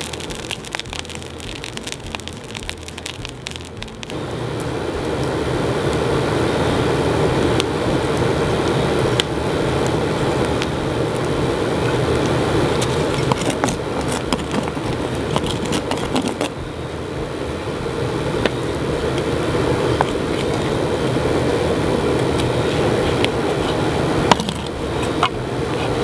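Wood fire burning hard in a blower-fed homemade foundry furnace: a steady rushing noise that swells about four seconds in and holds, with crackles and scattered sharp clicks from the burning wood.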